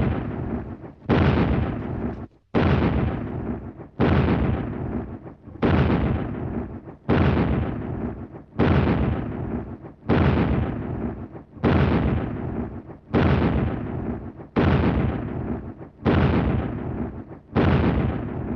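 A steady series of loud booms, one about every second and a half, each hitting suddenly and dying away before the next.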